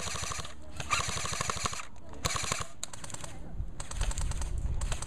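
Electric airsoft guns firing a string of short full-auto bursts, each a rapid run of clicks lasting well under a second, with brief gaps between them.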